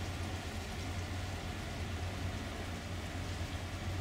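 Steady low hum with an even rushing hiss from a river cruise ship under way, heard from inside its cabin.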